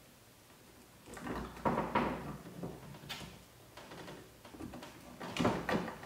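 Small handling clicks and scrapes from a hand wire stripper working the stripped copper ends of electrical wires, twisting them into hooks. They come in short clusters about a second in, near two and three seconds, and again a little after five seconds.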